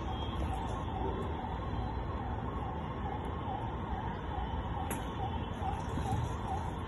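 A warbling, siren-like tone wavering about three times a second, over a steady low background rumble, with a single sharp tick about five seconds in.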